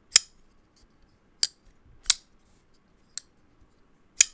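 Full-titanium Kubey Royal frame-lock folding knife being flipped open and shut on its ceramic bearing pivot: four sharp, snappy metallic clicks spaced about a second apart, with a fainter click between the last two, as the blade fires out and locks and then drops closed.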